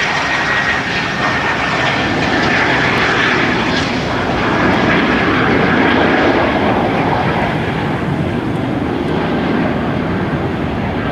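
Aircraft engines of low-flying airplanes making a pass over the runway: a steady, loud rush of engine noise with a faint high whine that slowly falls in pitch over the first few seconds.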